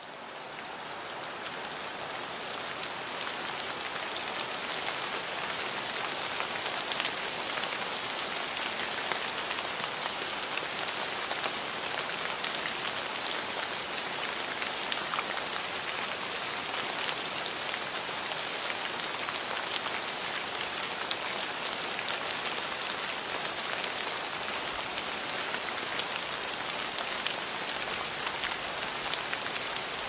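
Steady rain falling, with separate drops ticking through a dense hiss. It swells up over the first few seconds, then holds even.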